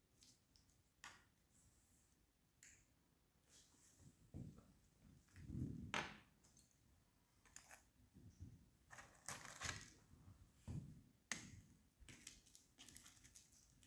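Faint, scattered clicks and soft knocks of chopsticks against a plate while fried chicken is handled.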